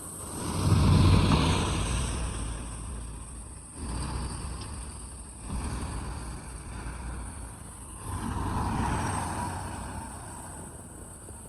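Diesel engine of heavy earthmoving machinery running under load, with a low rumble that swells louder about a second in and again around eight seconds in.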